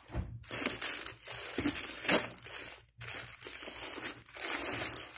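Packaging being handled and crinkled while items are unpacked from a gift box: irregular rustling and crumpling, with a short pause about three seconds in.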